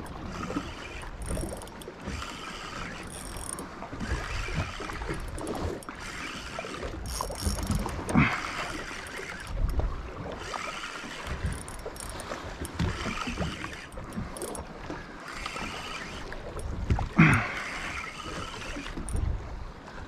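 Wind buffeting the microphone and waves splashing against a small boat's hull on open, choppy sea. A low rumble runs throughout, with a splash every second or two; the sharpest come about eight and seventeen seconds in.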